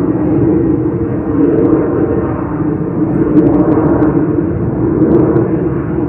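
Boeing 737-800 airliner climbing out after takeoff, its twin CFM56 jet engines giving a loud, steady low rumble.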